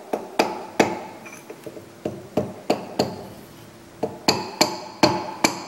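A small hammer (a machinist's 'persuader') giving about a dozen light, sharp taps in small groups, each with a brief metallic ring: the dividing head is being knocked a little at a time to bring its tilt into line.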